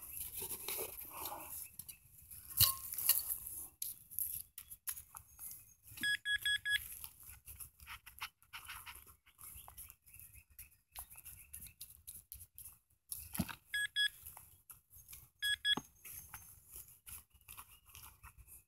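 Gloved hand scraping and crumbling loose soil in a dug hole, with a handheld Nokta pinpointer giving short runs of rapid high beeps about six seconds in and twice more later, signalling metal in the dirt.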